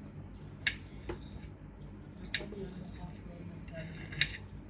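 A person eating on camera: chewing with four sharp, wet mouth clicks spread over a few seconds, the loudest near the end, over a steady low hum.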